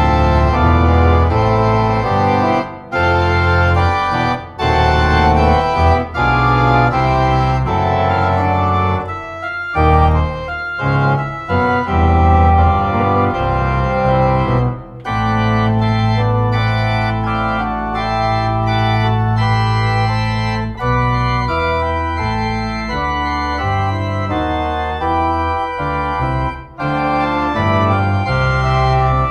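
Organ music: sustained chords over long held bass notes, with a few short breaks between phrases.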